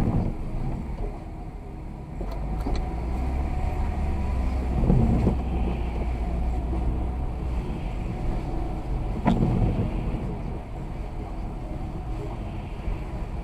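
Car driving on a snowy road: a steady low rumble of engine and road noise, with a thump about five seconds in and a sharp click about nine seconds in.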